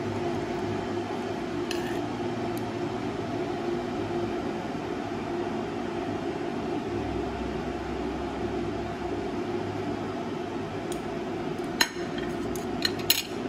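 A steady machine hum, with a few sharp clinks of a metal spoon against a plate near the end.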